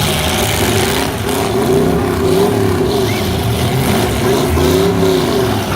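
Demolition derby car engines running and revving, their pitch swinging up and down several times.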